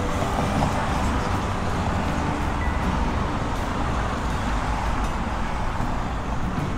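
Steady road traffic: cars driving past one after another, a continuous rush of tyres and engines.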